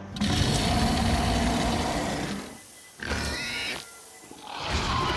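Cartoon dinosaur roaring for about two seconds, followed by brief high squeaks about three seconds in.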